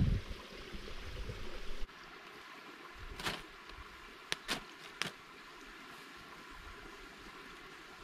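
A creek running steadily, with low thumps in the first two seconds and four short, sharp clicks about three to five seconds in.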